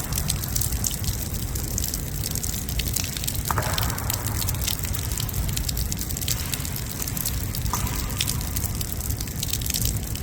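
Torrential rain pouring down: a steady heavy rush full of countless small taps of drops striking close by, with two short brighter swishes partway through.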